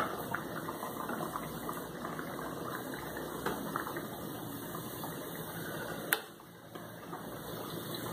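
Cassava pieces deep-frying in hot oil in a pan: steady sizzling with many small crackles. A sharp click about six seconds in, after which the sizzle is briefly quieter.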